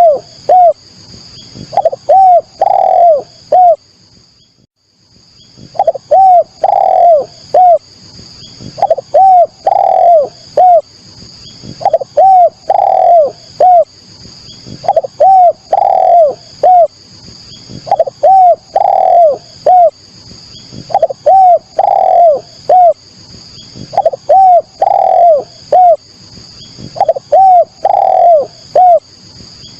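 Spotted dove cooing: phrases of three or four coos repeated about every three seconds, with one longer pause about four seconds in. A steady high-pitched whine runs behind it.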